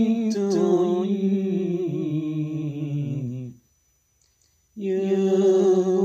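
An unaccompanied voice singing a slow, drawn-out Arabic devotional chant (sholawat), holding long notes. It breaks off for about a second past the middle, then resumes.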